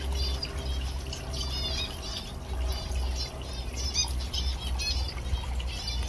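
Zebra finches calling, many short arched calls in quick succession, over the steady trickle of a pondless waterfall.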